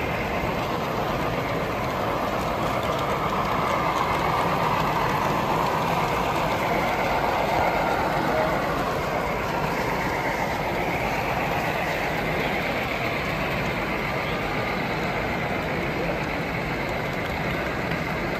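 HO scale model train, a lashup of Union Pacific diesel locomotives, running along the layout track with a steady running noise that swells somewhat from about four to nine seconds in.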